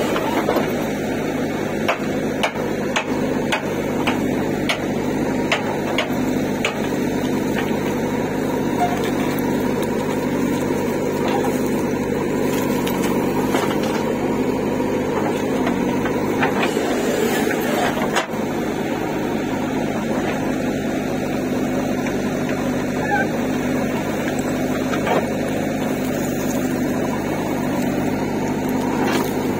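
JCB 3DX backhoe loader's diesel engine running steadily under load as the backhoe digs and swings soil, with scattered knocks and clanks from the bucket and falling soil.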